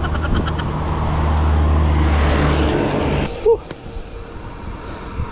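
A motor vehicle passing on the road: a steady low engine hum with tyre noise that swells to its loudest about two seconds in, then drops away abruptly just after three seconds.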